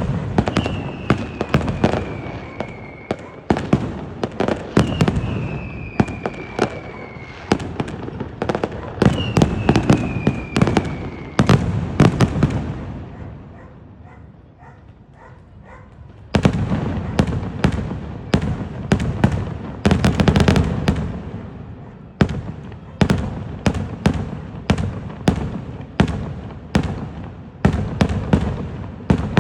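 Aerial fireworks display: a dense series of sharp bangs with three falling whistles in the first half. After a lull of a few seconds near the middle, quick bursts of bangs start again.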